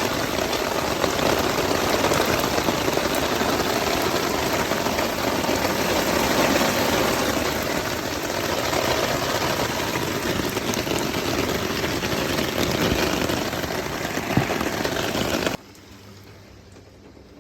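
Loud, steady rush of heavy typhoon rain. It cuts off suddenly near the end to a much quieter level.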